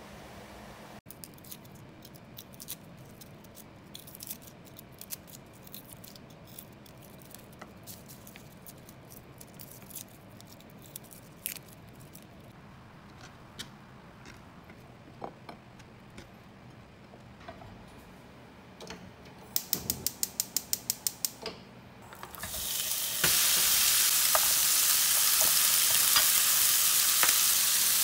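Light taps and clicks of vegetables and garlic being handled by a cutting board, then a quick run of about a dozen even clicks. About four-fifths of the way in, smoked duck slices begin sizzling in a hot frying pan, a loud steady sizzle that holds to the end.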